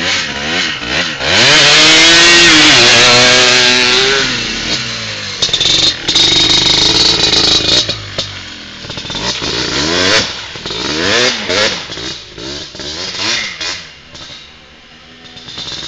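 Yamaha Blaster 200 ATV's single-cylinder two-stroke engine revving up and down as the quad pushes through mud, loudest in a long rising rev about two seconds in. The revs ease off near the end, then pick up again.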